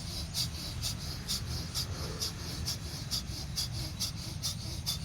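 Bhastrika bellows breathing: rapid, forceful breaths through the nose, about two a second, each a short sharp hiss, over a steady low hum.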